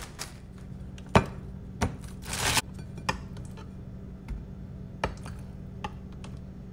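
Kitchen handling noises: a few sharp knocks and clinks of a plate and utensils on a countertop, the loudest about a second in, and a short rustle around two and a half seconds in, over a faint steady hum.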